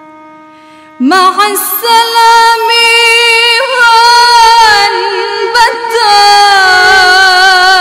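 An Arabic farewell song. A soft held note for about the first second, then a loud sung melody with long, ornamented, gliding notes.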